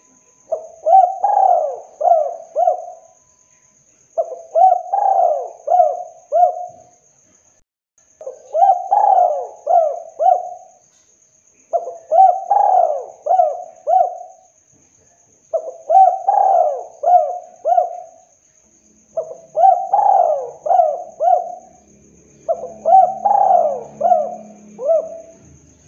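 Spotted dove cooing: seven phrases in a row, each a quick run of about four coo notes, with a short pause of a second or so between phrases.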